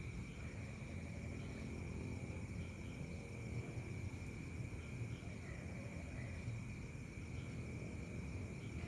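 Crickets and other night insects calling in a steady, unbroken high chorus, over a constant low rumble.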